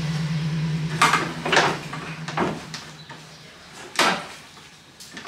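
Clunks and knocks from the engine and its fittings being shifted by hand in the engine bay, the loudest about a second in and about four seconds in. A steady low hum runs under them and stops about two and a half seconds in.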